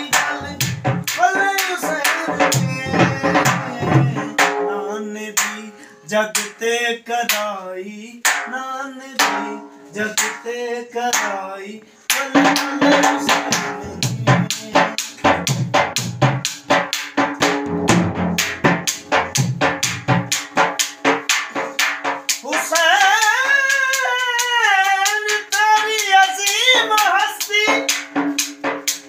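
Dhol beaten with sticks in a fast rhythm under devotional singing, with long held notes and a wavering melodic run near the end.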